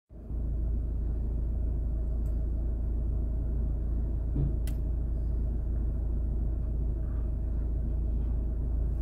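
Steady low rumble of an idling car heard from inside its cabin, with a faint steady hum and a couple of faint clicks.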